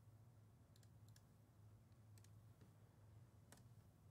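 Near silence: a steady low hum with a handful of faint, scattered clicks from computer input at a desk, the clearest about three and a half seconds in.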